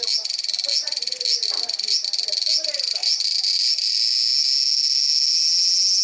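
Large brown cicada (aburazemi) shrilling. A high, sizzling song swells about twice a second, then settles into one steady, unbroken shrill from about four seconds in.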